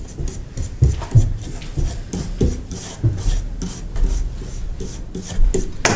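Repeated, irregular scraping strokes of a small stick rubbed back and forth against a wall panel.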